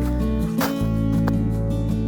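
Background music: acoustic guitar strummed chords with sustained bass notes, changing chord about half a second in.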